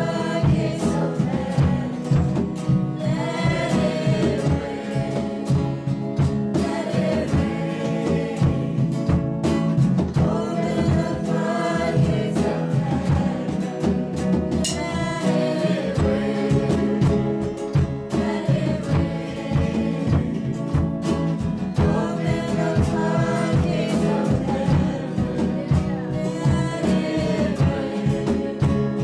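A live worship band playing a song: a woman singing lead over a strummed acoustic guitar, a second guitar and a drum kit keeping a steady beat.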